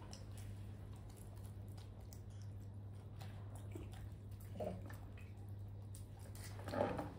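Faint wet clicks and smacks of a baby monkey chewing corn, over a steady low hum, with two brief louder sounds, one about four and a half seconds in and one near the end.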